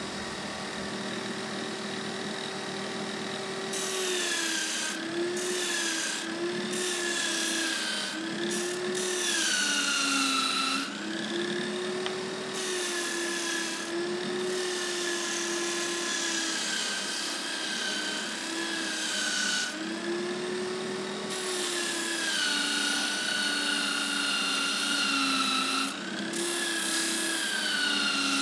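Disc sander running, its hardwood-on-abrasive rasp starting about four seconds in as Tasmanian Oak blocks are pressed against the disc to round off their corners. The motor's steady hum drops in pitch each time the wood is pushed in and rises again as it eases off.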